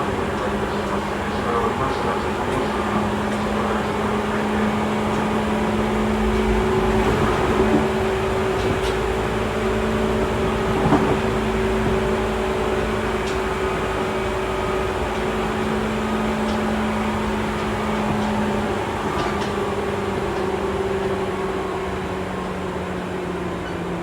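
Running noise inside a Seibu 2000 series electric train's motor car: a steady hum from the traction motors and gears over wheel-on-rail rumble, with a few faint ticks.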